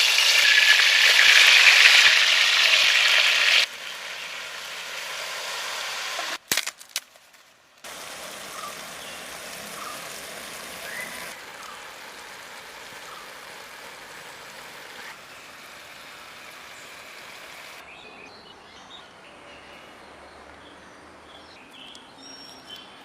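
Chicken frying in a pan with a loud sizzle for the first few seconds, then quieter sizzling that changes abruptly at a few edits.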